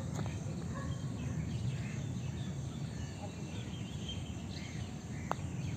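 Outdoor ambience between deliveries: a steady low rumble with small birds chirping now and then, and a single sharp click about five seconds in.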